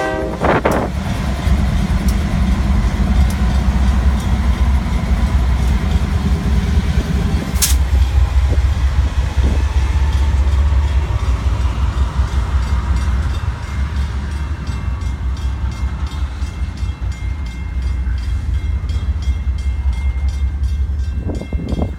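Double-stack intermodal freight train passing close by. The horn cuts off just after the start, and the trailing diesel locomotive's engine drones past for about the first seven seconds. The stack cars' wheels then rumble and clatter steadily over the rails.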